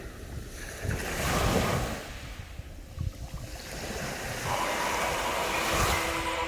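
Sea waves washing onto a beach: one swell of surf about a second in and another building near the end.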